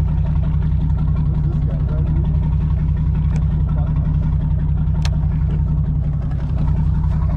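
Charter boat's engine running steadily, a loud low drone with a fast even pulse. A single sharp click about five seconds in.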